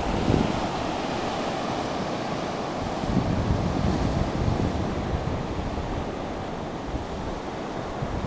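Ocean surf washing ashore in an even hiss of water that swells louder about three seconds in, with wind buffeting the microphone.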